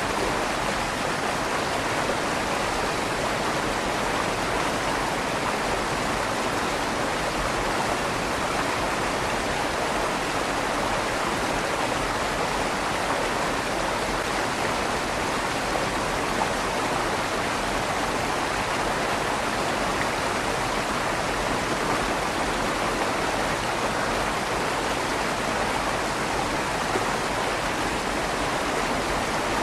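River water flowing steadily under a stone bridge, a continuous rushing noise with a slight echo from inside the bridge's tunnel.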